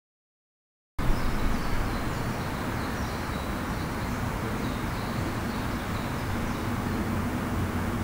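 Steady low rumble of distant traffic, with faint high chirping of small birds over it; the sound cuts in abruptly about a second in.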